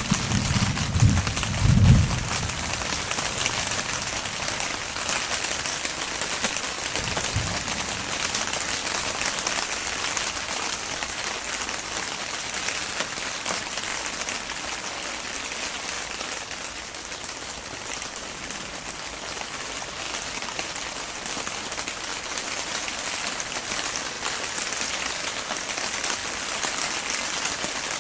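Steady rain falling, an even hiss throughout, with a few low thumps in the first two seconds and one more a few seconds later.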